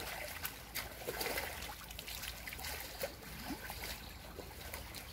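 Shallow stream water trickling, with scattered small splashes and clicks as hands work in the mud and water to plug leaks in a makeshift dam.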